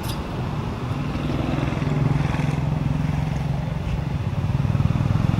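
Small engine, like a motorbike's, running steadily and getting louder near the end.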